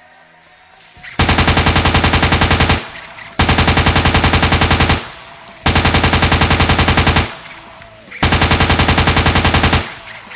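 Machine-gun sound effect played in four loud, identical bursts of rapid fire, each about a second and a half long with short pauses between.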